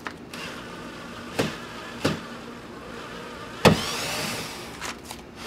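Cordless electric screwdriver whirring as it backs out a Phillips-head screw from a truck door, with a few sharp clicks and knocks. The loudest knock comes about two-thirds of the way in.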